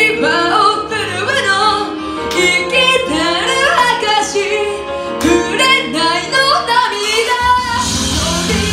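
A woman singing into a microphone, amplified through a club PA over a backing track. About seven and a half seconds in, a heavier beat with deep bass comes in under the voice.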